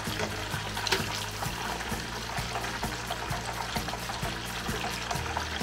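Breaded cheese pieces deep-frying in oil in a small saucepan, sizzling steadily, under background music with a steady beat.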